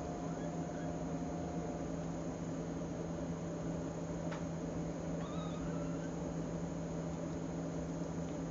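Two faint mews from young nursing kittens, about half a second in and again about five seconds in, over a steady hiss and low hum. A single faint click falls about four seconds in.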